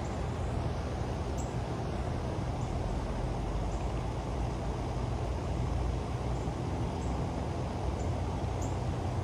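Steady low mechanical hum with a constant rushing background noise, and a few faint, short high chirps.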